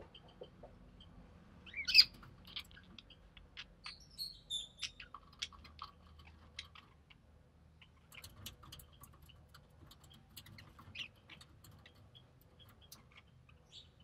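Budgerigars in the nest: short, high chirps and squeaks, the loudest about two seconds in, among scattered small clicks, taps and scratches of the birds moving and feeding.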